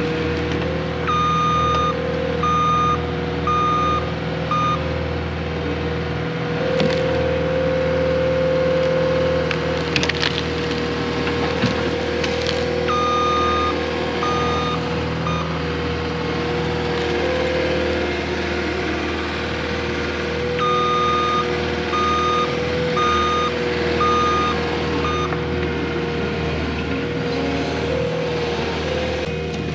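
Cat 259D compact track loader's diesel engine running under load with a steady hydraulic whine, its reversing alarm beeping in three spells of about five beeps each. A few sharp cracks of wood breaking come in the middle as the loader pushes and moves a tree.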